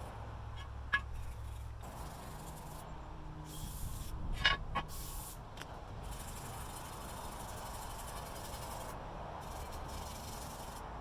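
Steady hissing, rubbing noise of hand work on metal, with a sharp metallic click about a second in and a short cluster of clicks about four and a half seconds in.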